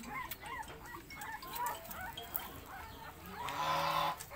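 Animal calls: a run of short, high, arching chirps, then one loud, buzzy call lasting under a second near the end.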